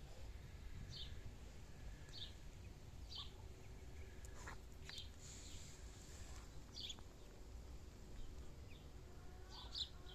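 Muscovy ducklings peeping: scattered short, high peeps every second or two over a steady low rumble.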